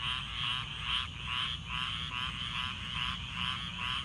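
Frogs calling loudly in a chorus, pulsed trilling calls repeating about two to three times a second, recorded on an iPhone's built-in microphone.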